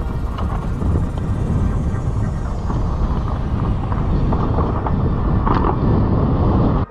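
Mountain bike riding fast down a dry dirt trail: wind rushing over the microphone and tyres rolling over the dirt, with scattered rattles and knocks as the bike hits bumps.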